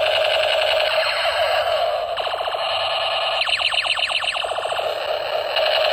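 Battery-powered toy light gun with a spinning propeller playing its electronic sound effects: a steady, siren-like warbling tone, broken by bursts of fast repeated laser chirps about two seconds in and again midway.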